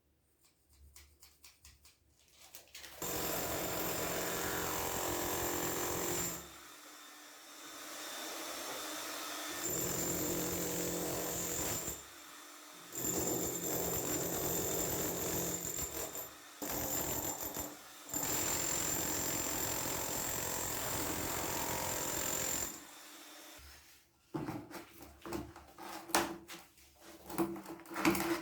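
Electric power tool running in several bursts of a few seconds each, with a steady high whine over the motor noise. Scattered knocks and clatter of tool handling follow near the end.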